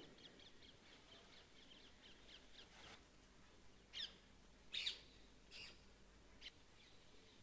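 Faint wild birds calling: a run of quick high chirps, about four a second, for the first three seconds, then four louder short calls a little under a second apart, the second of them the loudest.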